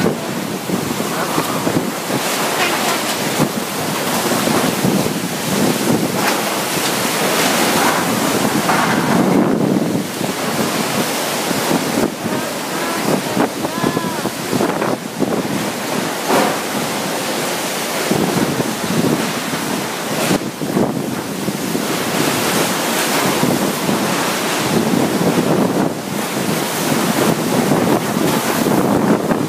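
Super typhoon wind blowing at landfall strength with driving rain, rising and falling in gusts and buffeting the microphone.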